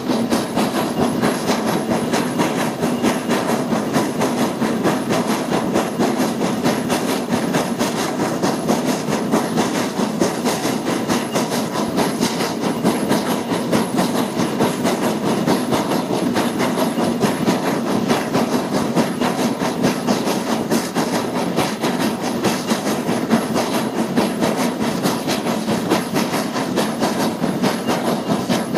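Peckett 0-6-0 industrial steam locomotive working hard, heard from its footplate. Its exhaust beats come in a rapid, steady rhythm.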